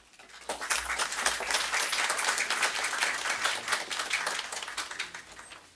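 Audience applause, starting about half a second in, holding steady, then fading away near the end.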